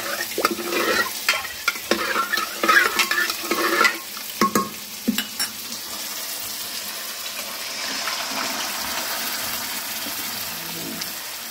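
A spoon stirring and clinking against an aluminium pot of boiled lentils for about four seconds, then a couple of knocks. After that comes a steady sizzle of spices frying in hot mustard oil in a kadai, swelling a little near the end.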